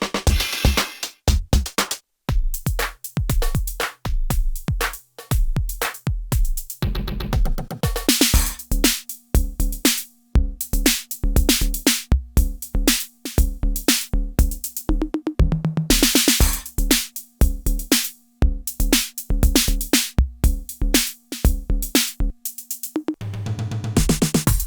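IK Multimedia UNO Drum, an analog/PCM hybrid drum machine, playing a programmed pattern of kicks, snares, claps and hi-hats in a steady rhythm, with a sustained pitched tone running under the hits through much of the pattern.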